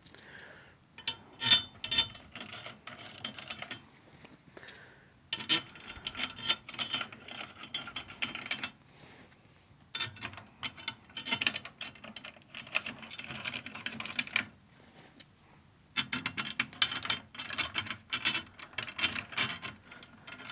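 Tension rods on a Sonor Signature snare drum being turned to tighten a new batter head, clicking rapidly like a ratchet as they pass the snap-lock fittings. The clicking comes in four runs of a few seconds each with short pauses between them.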